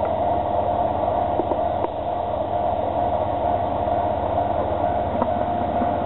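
Kanto Railway Joso Line diesel railcar running steadily as it creeps slowly along the platform, with a few faint clicks.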